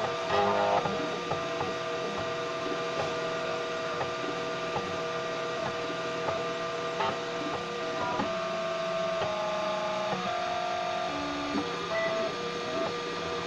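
Homemade 3D printer working through a PLA print: its stepper motors whine in steady tones that jump to a new pitch with each move of the print head, with short clicks between moves.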